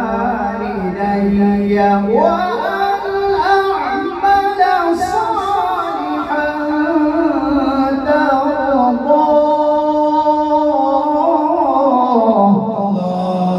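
A man reciting the Quran in tartil style, a melodic chant with long, drawn-out held notes. The pitch steps up about two seconds in and sinks back near the end.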